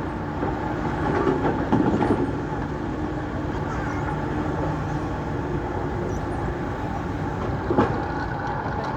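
Excavator's diesel engine running steadily, with a couple of short knocks about two seconds in and again near the end.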